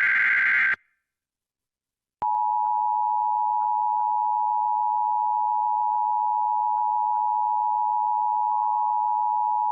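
Emergency Alert System broadcast: a SAME header data burst, a harsh digital warble, ends under a second in. After a short silence, the EAS two-tone attention signal (853 and 960 Hz together) starts about two seconds in and holds steady and loud, announcing a weather warning.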